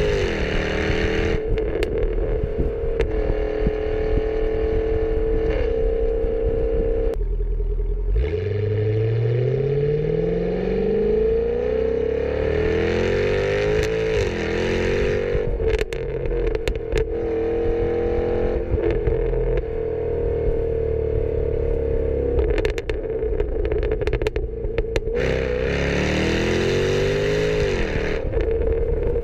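Exhaust of a Jaguar F-Type R's supercharged 5.0 V8, heard right at the tailpipes while driving. The engine note rises and falls repeatedly through acceleration and gear changes, with one long steady climb in pitch about a third of the way in. Clusters of sharp cracks come about halfway and again later on.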